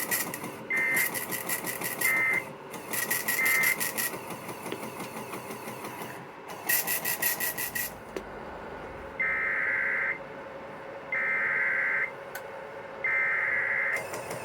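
Emergency Alert System SAME digital data bursts received over radio: short, harsh two-tone screeches about a second long, several in a row. The last three are clean and evenly spaced, the header that opens the next flood warning. A steady faint radio hiss runs between them.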